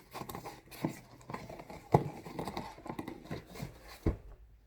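A cardboard shipping box being handled: scattered taps and rustles, with two sharper knocks about two and four seconds in.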